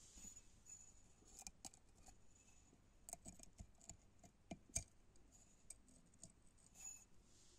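Faint, irregular clicks and small scrapes of fingers picking through brittle green copper crystals in a glass jar, the crystals tapping against each other and the glass. The sharpest click comes about five seconds in.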